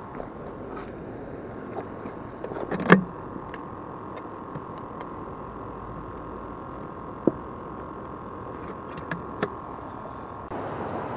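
Steady hum of a small battery-powered aquarium air pump aerating a plastic water jug that holds live caught fish, with a few sharp knocks from handling, the loudest about three seconds in. Near the end a louder, even rush of river water comes up.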